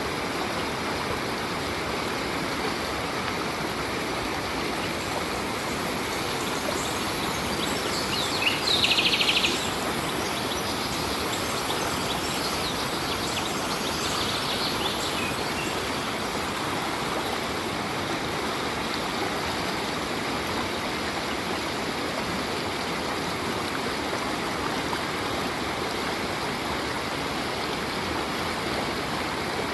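Stream water flowing steadily, with a brief rapid bird trill about eight seconds in and a fainter bird call around fourteen seconds.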